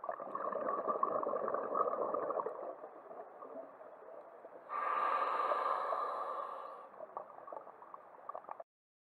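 Scuba diver breathing through a regulator underwater: crackling exhaled bubbles for the first few seconds, then about halfway through a sharper hiss of an inhaled breath lasting about two seconds, then bubbles again. The sound cuts off abruptly just before the end.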